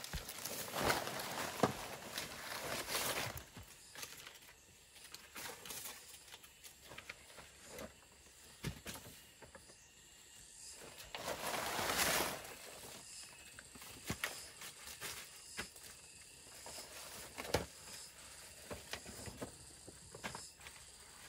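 Large banana leaves rustling and crinkling as they are handled and spread on a dirt floor, in irregular bursts with light taps between. The loudest rustles come about a second in and again about halfway through.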